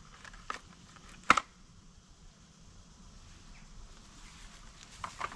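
Small hard parts being handled: a light click, then a sharp double knock about a second in, and two more clicks near the end, over faint outdoor background.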